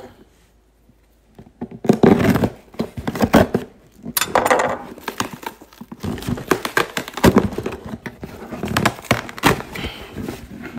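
Duct tape being peeled and ripped off a cardboard box by hand, a ragged run of crackling tears with cardboard rustling and knocks, starting about two seconds in.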